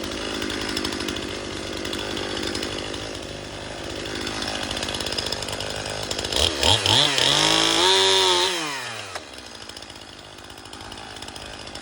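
STIHL MS-291 gas chainsaw with a 20-inch bar, running steadily under load while cutting. About six and a half seconds in it revs up high and holds there, then winds back down to a steady idle about nine seconds in.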